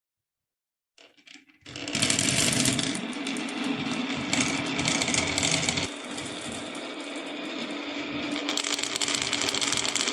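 Many marbles rolling and clattering down a wooden marble run, a dense rattle of rapid clicks that starts suddenly about two seconds in and carries on.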